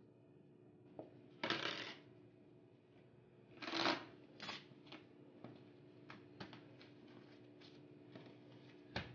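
Plastic cling film crinkling in a few short bursts as it is wrapped around a block of pie dough, the two loudest about a second and a half and four seconds in, with small crackles between, over a faint steady hum.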